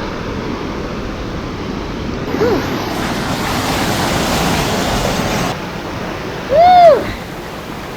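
Rushing water of a waterfall, louder for a few seconds in the middle. A faint short rising-and-falling cry comes between 2 and 3 seconds in, and a brief louder one, the loudest sound here, comes near the end.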